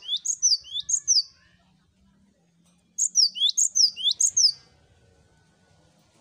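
Cinereous tit (gelatik batu) singing two bursts of quick, sharp, high notes, each note dropping steeply in pitch. The first burst comes at the start and the second about three seconds in, each lasting about a second and a half.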